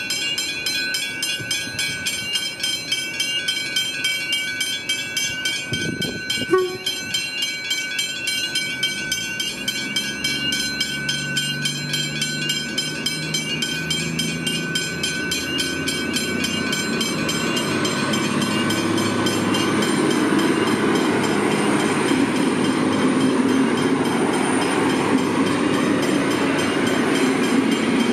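Railway level crossing bells ringing rapidly and steadily. A V/Line VLocity diesel railcar approaches, its engine and rail noise coming in about ten seconds in and growing louder from about seventeen seconds, with a brief horn sound about six and a half seconds in.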